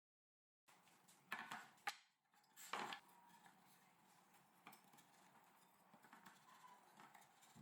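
Faint room tone with a few light knocks and clatters in the first three seconds, like small objects or tools being handled.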